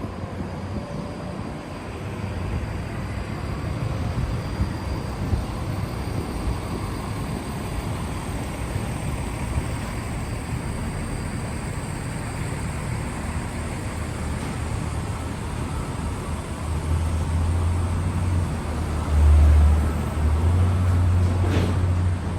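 City street ambience: a steady hum of traffic. A heavy, deep rumble comes in about three-quarters of the way through and grows louder near the end.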